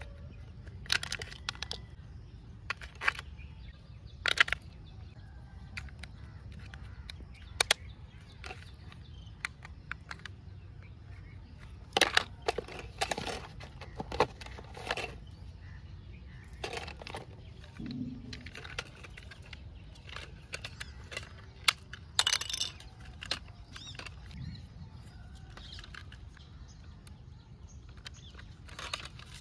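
Hands handling a plastic toy tractor, its remote control and a cardboard box: scattered sharp plastic clicks, taps and short rustles, over a low steady background rumble.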